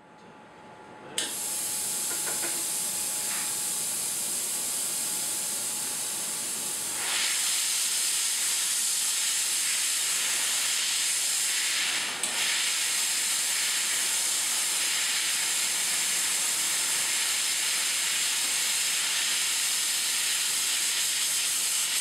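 OZPEN CO2 snow cleaner's nozzle spraying a jet of propellant gas carrying dry-ice particles onto a fiber optic connector end, heard as a steady loud hiss. It starts suddenly about a second in, grows louder and brighter around seven seconds in, and briefly dips near the twelve-second mark.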